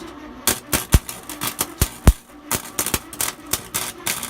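A Harbor Freight flux-core wire welder's arc sputtering and crackling in uneven pops as a beginner runs a bead, with two heavier pops about one and two seconds in.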